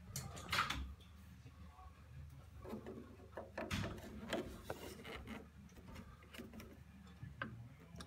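Light handling noise: scattered small clicks, knocks and rustles of hands working plastic and metal parts inside a gas boiler, close to the microphone. There is a low hum underneath.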